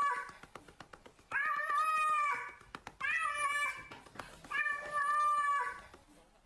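Silver tabby cat meowing over and over in long, drawn-out, steady-pitched calls about a second and a half apart, while its rump is being patted. Faint clicks fall between the calls.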